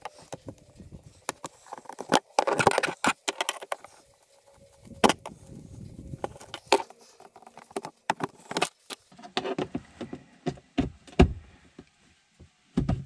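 Plastic push-rivet clips being pried out of a Can-Am Defender's plastic floor and dash trim with a hook tool: scattered clicks, scrapes and plastic knocks, with a denser run of rattling about two to three seconds in and a few louder knocks near the end.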